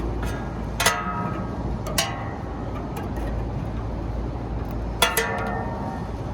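Three sharp metal clanks, each ringing briefly, about a second in, a second later, and again near the end, over a steady low rumble, as metal parts of a rooftop condenser unit are handled.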